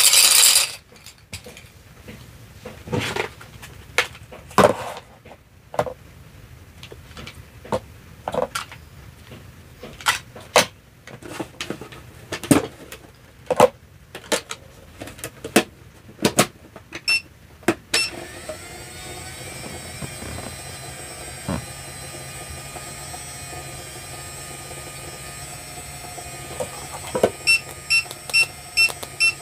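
Hard plastic toy pieces tapping and clattering, then a toy microwave oven beeps and runs with a steady electronic hum from about 18 seconds in, beeping rapidly near the end.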